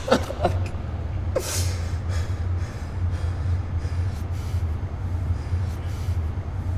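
A man sobbing and gasping for breath, with sharp gasps in the first second and a half, then ragged breathing over a low steady hum.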